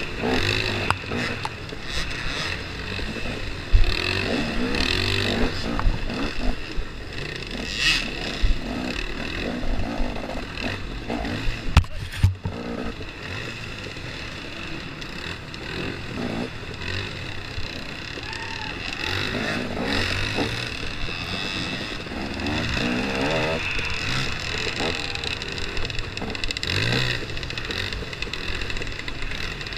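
KTM 250 XC-W two-stroke dirt bike engine revving up and down over a wooded trail, with other dirt bikes running close ahead. A few sharp knocks are heard, the loudest about four and twelve seconds in.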